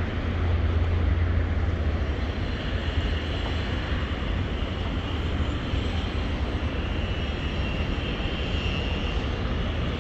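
Steady low rumble of street noise, with an even hiss above it.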